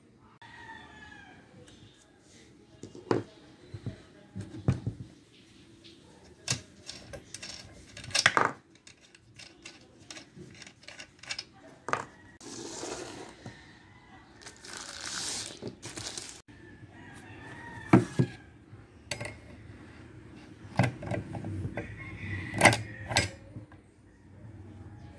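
Clicks, clinks and knocks of a hex key and metal parts on a DeWalt DW5200 gasoline chainsaw as the bar nuts are undone and the guide bar is fitted onto the bar studs. A few louder, sharp knocks are spread through.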